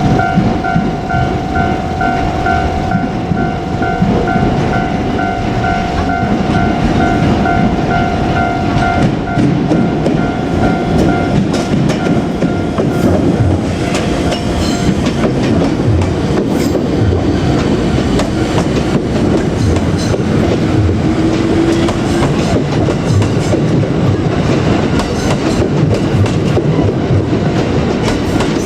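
A JR Kyushu 787-series electric train rumbles past over a level crossing. The crossing's warning bell rings in a fast, even beat for roughly the first ten seconds, then stops, leaving the steady rumble of the train with a run of wheel clicks over the rail joints.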